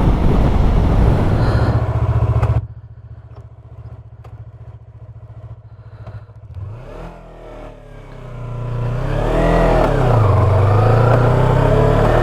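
Yamaha R3 motorcycle's parallel-twin engine: loud riding noise with wind on the microphone, cut off abruptly, then the engine idling quietly before it revs and pulls away. Its pitch rises, dips at a gear change about ten seconds in, then climbs again.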